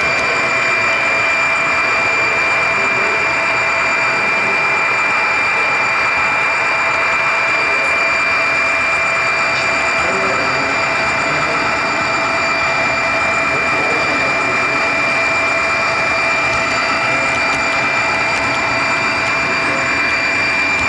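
HO-scale model train running steadily along the track, heard from on board: an even rolling noise with a constant high whine from the drive.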